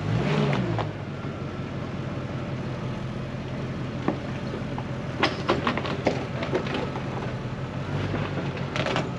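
Land Rover Discovery 2's engine running at low revs while crawling over rocky ground, with a brief rise and fall in revs at the start. Scattered sharp knocks and clicks come about four seconds in, again over the next couple of seconds, and near the end.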